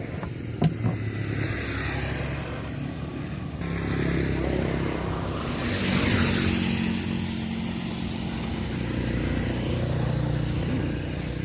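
A small engine running steadily, with a rush of noise that swells and fades about five to seven seconds in.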